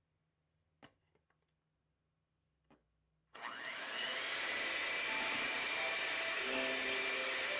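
Electric hand mixer switched on about three seconds in, its motor whining up in pitch to speed and then running steadily at medium speed, the beaters whisking warmed whole eggs and sugar into foam. A few faint clicks come before it starts.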